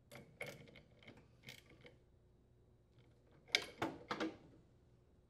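Faint metal tool clicks and clatter as a socket turns the dryer's plastic blower wheel tight on the motor shaft, in a loose run of clicks over the first two seconds and a louder cluster about three and a half seconds in.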